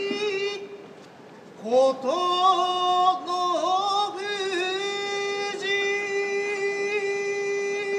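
Sumo yobidashi's drawn-out singsong call of a wrestler's name, one male voice holding long notes and sliding between them. It breaks for a breath about a second in, then swells back and holds one long note to the end.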